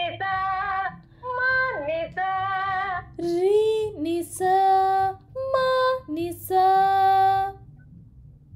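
A female voice singing a Carnatic practice passage in short phrases of held notes joined by pitch glides, without lyrics transcribed. The singing stops about a second before the end.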